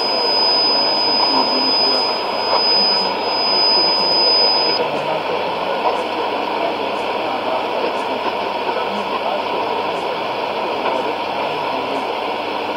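Shortwave AM broadcast in Urdu from Radio Afghanistan on 6100 kHz, played through a Sony ICF-2001D receiver's speaker: a voice half-buried in steady hiss and atmospheric noise. A steady high whistle sits over it and stops about five seconds in.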